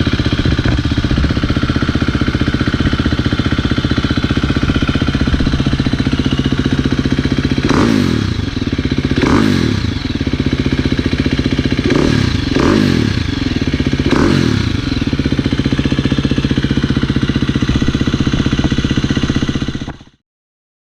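2017 Husqvarna FE350's single-cylinder four-stroke engine idling through a newly fitted FMF 4.1 titanium/carbon fiber slip-on exhaust, with five quick throttle blips in the middle. The sound cuts off abruptly near the end.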